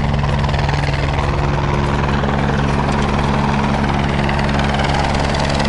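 An engine running steadily at a constant speed, a low hum with no change in pitch.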